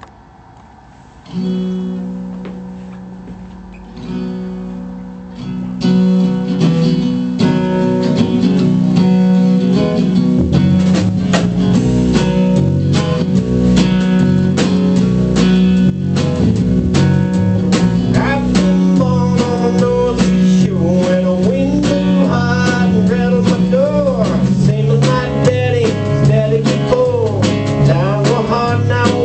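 Background music: a guitar-led blues-rock track. Two ringing chords fade out, then drums and bass come in about six seconds in, and the full band plays on.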